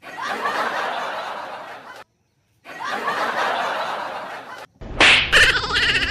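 A laughing sound effect played twice in a row, each time about two seconds long, starting and stopping abruptly. A louder patterned sound cuts in near the end.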